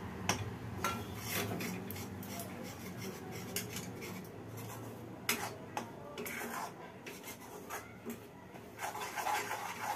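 Steel spoon scraping and clinking against a steel kadhai as gram flour (besan) is stirred into hot sugar syrup, in irregular scrapes and taps.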